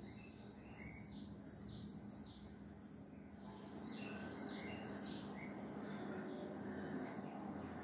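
Small birds chirping in quick, short, high notes, several a second, over a faint steady low hum.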